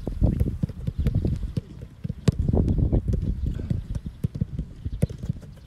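Footballs being struck in a passing drill: a few sharp kicks, the clearest a little over two seconds in and another about five seconds in, over a steady low rumble.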